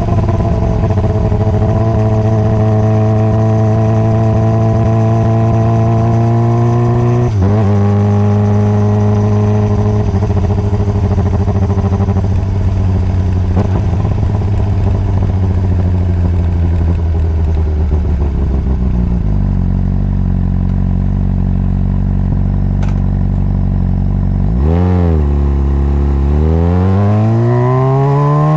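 Honda CBR600RR inline-four engine heard from on board while riding. It runs steadily, with a sudden step down in pitch about seven seconds in, like a gear change. It then slows to a low steady note, gives a brief dip and rise in pitch, and near the end revs up with rising pitch as the bike accelerates.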